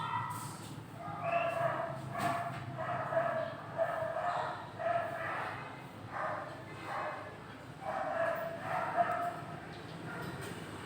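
A dog barking repeatedly, about ten short barks, each roughly half a second long.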